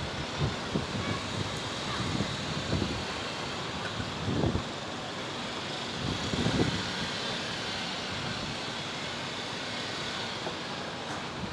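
Wind buffeting the microphone in gusts over a steady hiss of outdoor city ambience, with the strongest gusts about four and a half and six and a half seconds in.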